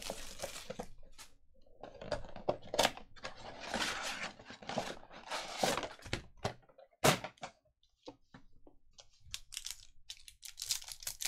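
Hands handling an opened cardboard trading card box and its foil card packs on a tabletop: scattered knocks and thunks with rustling and scraping of cardboard, one sharper knock about seven seconds in, and a run of clicks and crinkles near the end as a foil pack is handled.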